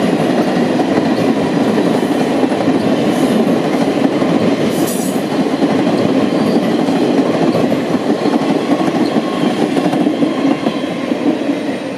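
Union Pacific passenger cars rolling past, a steady, loud rumble of steel wheels on the rails with clickety-clack over the rail joints. A brief high squeal comes about five seconds in, and the sound eases a little near the end as the rear of the train draws away.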